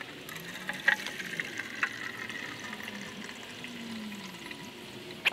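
Battery electrolyte (dilute sulphuric acid) pouring out of the vents of an upturned lead-acid car battery into a plastic tub. The stream is steady, with a couple of knocks from the battery case and a sharper knock at the end.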